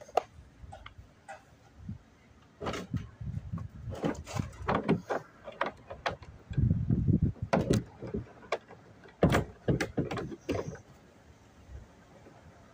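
Irregular clicks, knocks and scrapes, starting about three seconds in and stopping near the end, with a patch of dull low thumping around the middle.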